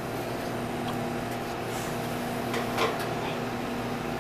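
Steady hum of running kitchen equipment, with a couple of light metallic clinks about three seconds in as cookware is handled at the gas range.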